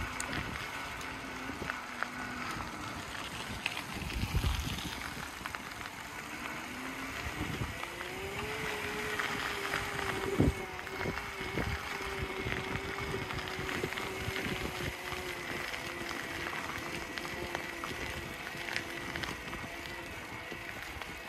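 A rattly bicycle ridden over a gravel path: a steady crunch and rattle from tyres and frame, with two hard knocks from bumps, one about four seconds in and a sharper one about ten seconds in.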